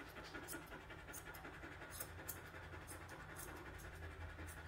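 Faint, irregular snips of curved grooming shears trimming an Australian Labradoodle's coat, with the dog panting softly.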